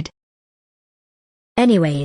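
A computer text-to-speech voice, cut off dead just after the start, then digital silence for about a second and a half before the voice speaks again near the end.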